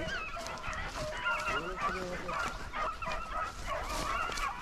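A pack of beagles baying together on a rabbit's trail, several wavering voices overlapping without a break.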